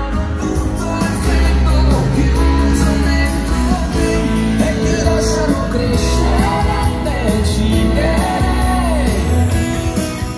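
A song with singing and a heavy bass line playing loud through a vintage hi-fi system: a silver receiver driving large floor-standing multi-driver speakers.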